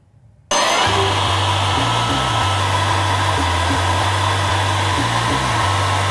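Handheld hair dryer switched on about half a second in and blowing steadily, with background music carrying a low bass line under it.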